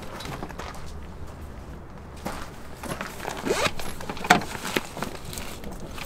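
Fabric wet-tissue case being handled on a car door panel: cloth rustling and rubbing in short strokes, with a sharp click a little over four seconds in.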